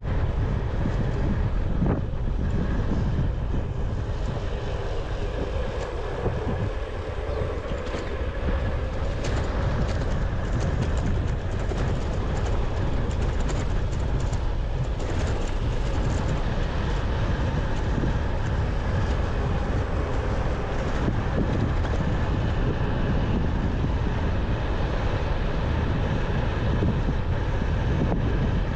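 Steady rush of wind and road noise from a vehicle travelling along a road, with a heavy low rumble of wind on the microphone.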